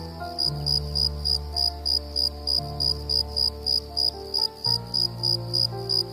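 A cricket chirping in a steady rhythm, about three high chirps a second, over soft background music of held chords and bass notes.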